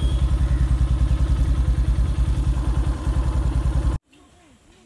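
Motorcycle engine running close by, a loud, steady, fast-pulsing beat. It cuts off abruptly about four seconds in, leaving a much quieter background.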